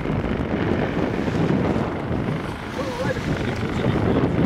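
Wind buffeting the microphone over the wash of water around a boat under way.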